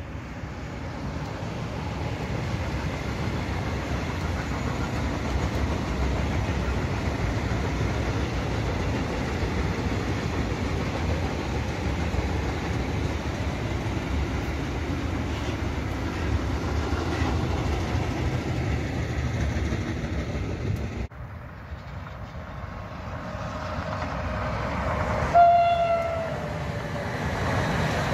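Freight train of open wagons hauled by an electric locomotive rolling past: a steady noise of wheels on rail. It breaks off about three quarters of the way through. Then more freight wagons roll by, and a train horn sounds once, briefly, dipping slightly in pitch.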